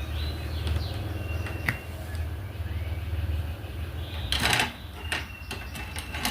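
Light clicks and taps of diamond-painting work, the drill pen pressing resin drills onto the canvas, with a short rustle about four and a half seconds in, over a steady low hum.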